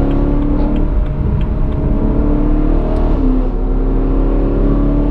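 BMW E92 M3's V8 with a modified exhaust (pre-cat delete, aftermarket rear silencer), heard from inside the cabin while accelerating. The engine note climbs steadily, drops at an upshift about three seconds in, then climbs again and drops once more at a second shift near the end.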